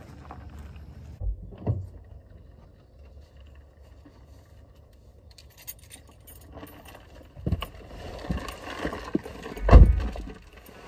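Handling noise in a car: knocks as the phone is set in place, then rustling and knocks as a man climbs into the driver's seat and settles, with keys jangling. The loudest is a heavy thump near the end.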